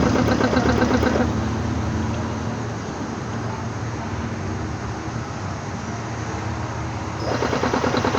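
Reciprocating air compressor running with a rapid, even knocking beat. The beat drops away about a second in, leaving a quieter steady hum, and comes back near the end.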